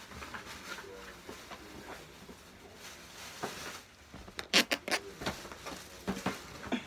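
Handling noises as gifts and their packaging are moved about: light rustling, then a quick run of sharp clicks and knocks about four and a half seconds in, and a few more near the end.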